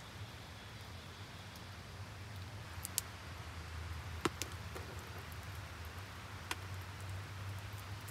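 A roasted nut's shell cracked and peeled open by hand: three sharp, short cracks spaced a second or two apart, over a steady low hum.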